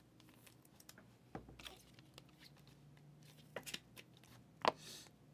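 Faint rustling and small clicks of a trading card being slid into a clear plastic sleeve and handled, with a few sharper ticks and one louder click followed by a short swish near the end.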